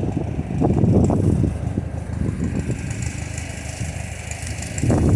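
A vehicle engine running, easing off in the middle and picking up again near the end.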